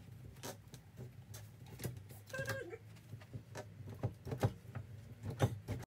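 Chrome lever handle and latch of a sticking interior door rattling and clicking repeatedly as the handle is worked and the door pulled, over a low steady hum. A short squeak comes about two and a half seconds in.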